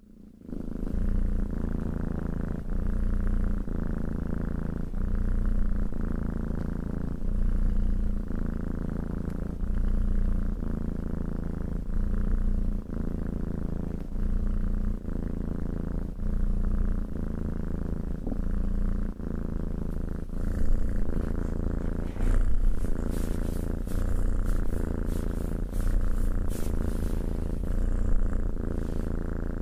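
Tabby cat purring steadily as its belly is stroked, each purr swelling and easing with its breathing a little more than once a second. From about twenty seconds in, a crisp rustling from the stroking hand joins it.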